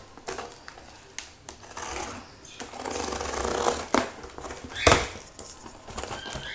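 Utility knife slicing through the packing tape on a cardboard box, a scratchy rasp from about two to four seconds in amid light clicks and knocks. The cardboard flaps are then pulled open, with a sharp knock about five seconds in.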